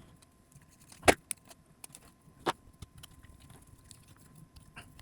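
Light clicks and taps of small 3D-printed plastic parts and bolts being handled and fitted together, the sharpest click about a second in and another about two and a half seconds in.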